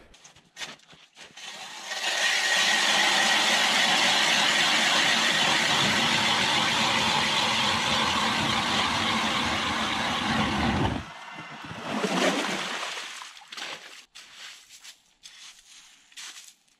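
Strikemaster 40V electric ice auger boring a hole through lake ice. It starts about two seconds in, runs steadily with a faint whine for about nine seconds and cuts off suddenly, then runs again in one short burst. Near the end come light scrapes and taps as slush is scooped from the fresh hole.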